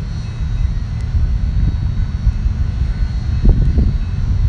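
Deep rumble of two BNSF GE diesel freight locomotives throttling up to pull a grain train away from a stop after a green signal. The rumble swells a little louder about three and a half seconds in.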